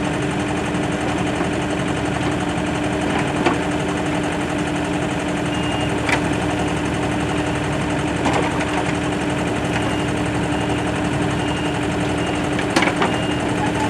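Excavator's diesel engine running steadily under load while pulling a heavy skid steer out of mud, with a few faint knocks.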